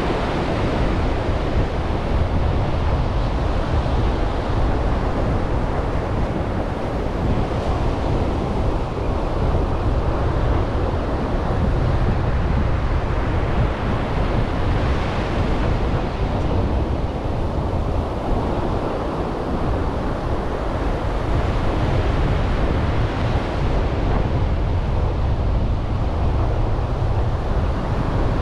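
Surf breaking on a sandy beach, swelling every several seconds, over a steady wind rumble on the microphone.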